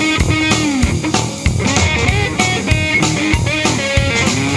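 Live rock band playing an instrumental passage: an electric guitar lead line with gliding, bent notes over electric bass and a drum kit keeping a steady beat.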